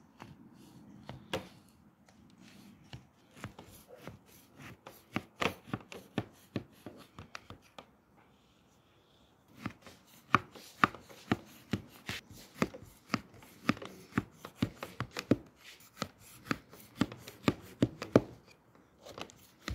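Knife cutting raw layered pakhlava pastry in a round baking pan: a run of sharp taps and clicks, several a second, with a short pause about eight seconds in.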